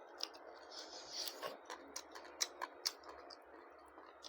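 Close-up eating sounds of a person chewing goat lung with roti and rice: an irregular run of small wet mouth clicks and lip smacks, a few sharper ones past the middle, with a brief breathy hiss about a second in.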